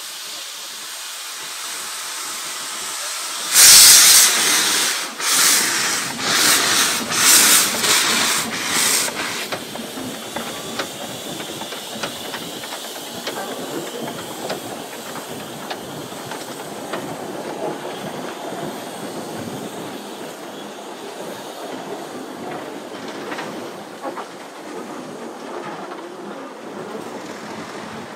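Narrow-gauge steam locomotive hissing steam, then starting away: about four seconds in come loud bursts of steam with each stroke, about six of them, coming quicker and fading. After that the engine and its open carriages roll past, running on the rails.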